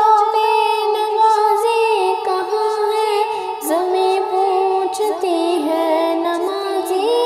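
A high voice singing a naat (Islamic devotional song) unaccompanied, holding long notes that slide between pitches.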